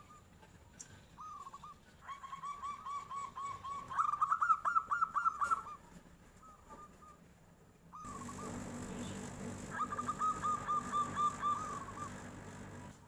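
Zebra dove (perkutut) singing: two runs of quick, repeated short cooing notes, the first louder near its end.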